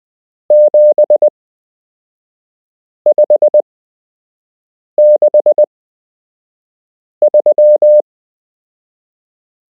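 Morse code as a steady mid-pitched beep, keyed out as four separate characters about two seconds apart, with a fifth starting at the very end. Each character is a run of five dots and dashes, the length of a Morse numeral, sent slowly for learners to copy.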